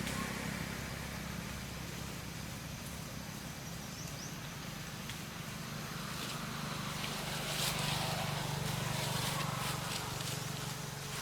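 Steady low hum of a running motor vehicle engine, swelling slightly about two-thirds of the way through, with light rustling and clicks over the second half.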